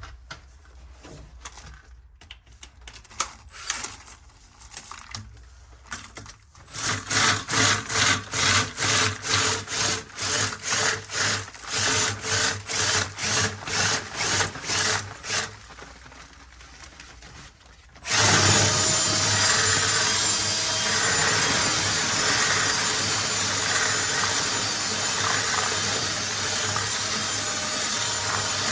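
Machine chimney sweeping. Rhythmic scraping strokes come about two a second. About two-thirds of the way in, a power-tool motor starts and runs steadily, spinning a rotary sweeping brush through the flue against tarry creosote.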